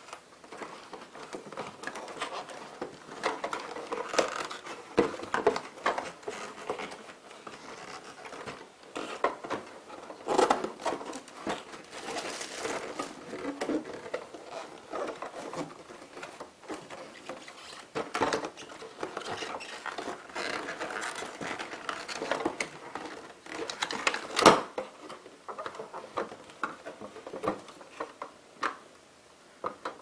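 Cardboard box and inserts rustling and scraping as a plastic toy vacuum cleaner is worked out of its packaging, with irregular small knocks of hard plastic against cardboard. One sharp knock about three-quarters of the way in is the loudest.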